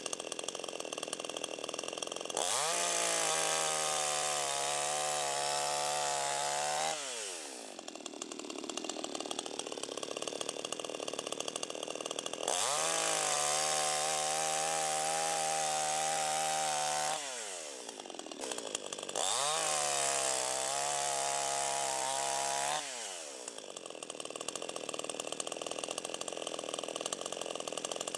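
CD52H two-stroke chainsaw cutting into a fallen coconut tree trunk. It is opened up to full throttle three times, each time for about four to five seconds, and drops back to a low idle in between.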